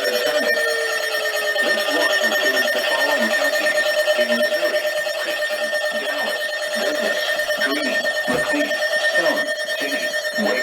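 Steady electronic alarm tone held on one pitch, with a rapid fluttering pulse beneath it.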